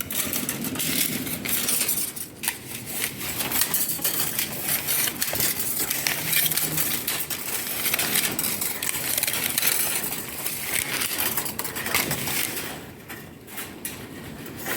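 Continuous rustling and scraping handling noise with scattered light metallic clicks and clinks, from electrical cable and tools being handled during wiring work. It eases off near the end.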